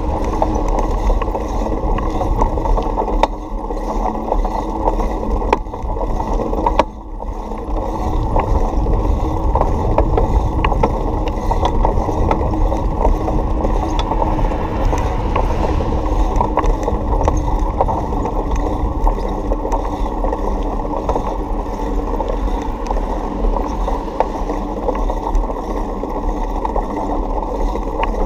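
A bicycle ridden along a concrete sidewalk, heard through a camera mounted on the bike: a steady rumble with many small rattles and clicks from the bike. The sound dips briefly about three seconds in and again about seven seconds in.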